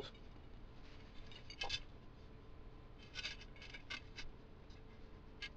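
Light metallic clicks and ticks of steel bicycle spokes being handled and threaded through the hub motor's flange and the rim, a few small clusters scattered through, over a faint steady hum.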